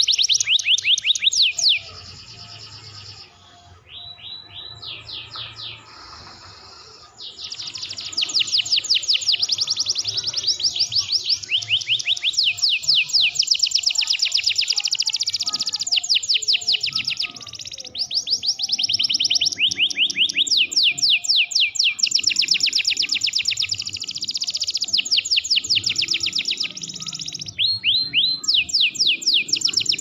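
Domestic canary singing loudly in long rolls of rapid high trills, each made of fast, closely repeated down-sweeping notes. A softer, quieter passage comes a few seconds in, and the song breaks briefly a few times later on.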